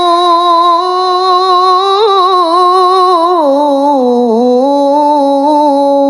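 A male qari reciting the Quran in the melodic tilawah style, drawing out one long ornamented note without a break. The note holds level, then steps down in pitch a little past halfway and settles lower with a slight waver.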